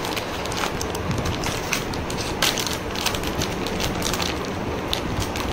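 Packaging wrap being pulled open by hand, crinkling and rustling, with many quick sharp crackles.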